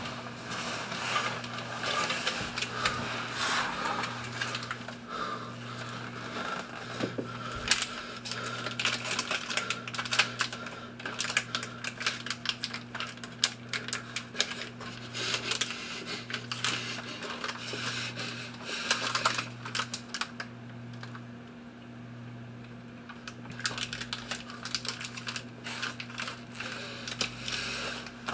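Rapid, irregular clicking and crackling over a low hum that pulses about once a second; the clicks thin out for a few seconds about two-thirds of the way through.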